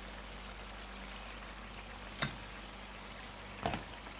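A pot of pepper sauce simmering, with a steady bubbling sizzle. A metal spoon clinks against the pot twice, about two and about three and a half seconds in, as pieces of fish are scooped out.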